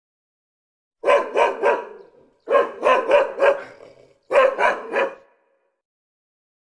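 Dog barking in three quick runs of three to five short barks each, the runs about a second apart.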